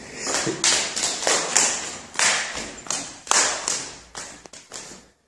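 Footsteps going down hard stairs: a string of taps and thuds, roughly one every half second to second.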